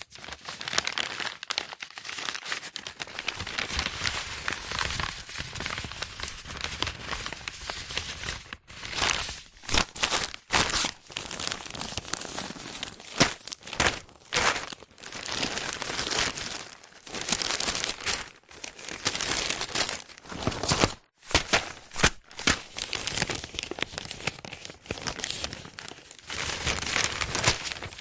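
Sheets of paper being handled, crumpled and crinkled in a continuous run of rustling crackle, with sharper strokes and a few brief pauses.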